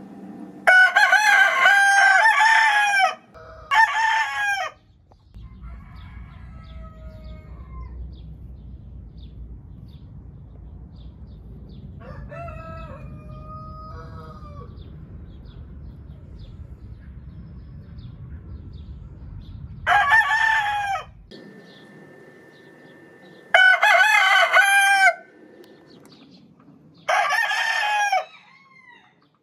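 Black Rhineland roosters crowing. There is a long crow and a shorter one at the start, fainter crows in the middle, and two more loud crows later on. A Silver-grey Dorking rooster crows once near the end.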